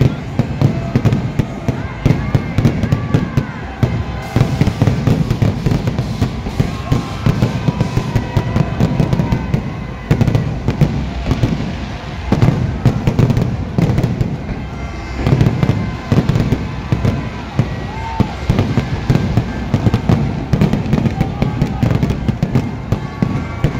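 Fireworks going off in a dense, continuous run of bangs and crackles.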